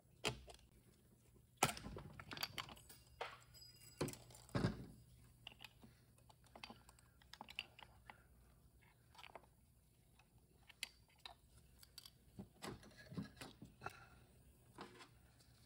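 Irregular light clicks and knocks of small metal transmission parts being handled and set down while a Ford 4R70W transmission is taken apart by hand. The two loudest knocks come about a second and a half and about four and a half seconds in.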